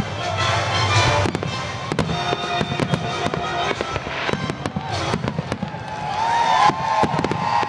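Aerial fireworks shells bursting in the sky: repeated bangs and crackling all through, with music playing underneath.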